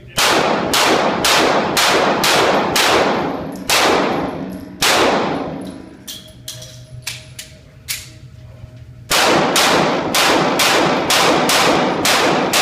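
Springfield XD-S 9mm pistol fired in two rapid strings of about eight shots each, a shot roughly every half second, echoing in an indoor range, with metallic clanging from hit steel plates. The strings are split by a pause of about four seconds with a few light clicks while the shooter moves and reloads.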